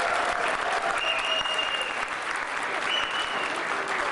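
Audience applauding steadily, with two high, steady whistles over the clapping, one about a second in and a shorter one about three seconds in.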